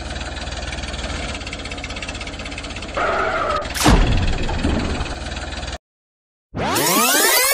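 Dubbed-in tractor engine sound effect running steadily, with a sharp splash-like hit about four seconds in as the toy tractor goes into the water. The sound cuts out briefly before a loud sweeping effect whose pitch rises and then falls.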